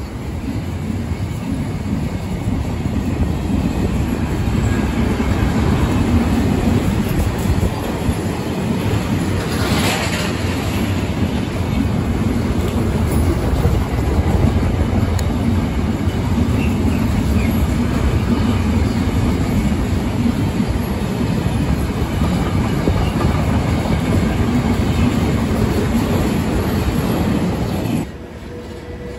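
Freight train of car-transporter wagons loaded with vans passing on the near track, the wagons' wheels running steadily over the rails. The sound cuts off suddenly near the end.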